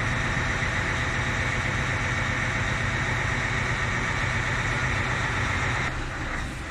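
An engine idling steadily with an even hum. It drops in level and changes character about six seconds in.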